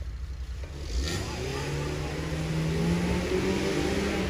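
Off-road vehicle's engine revving hard: a low idle-like rumble, then about a second in the revs jump sharply, climb and hold high under load.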